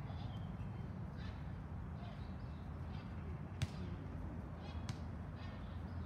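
A basketball bouncing on an outdoor court: two sharp bounces about a second and a half apart in the second half, over a steady low city rumble, with faint high chirps every second or so.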